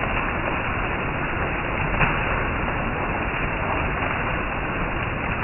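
Heavy rain falling steadily on leaves and a roof, with water running off the roof edge; one sharp tap stands out about two seconds in.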